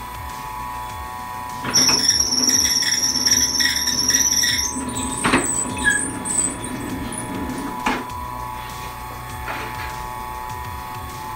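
Soba noodle machine running with a steady hum as it rolls a sheet of buckwheat dough. About two seconds in, a loud high squeal lasts about three seconds, followed by two sharp knocks.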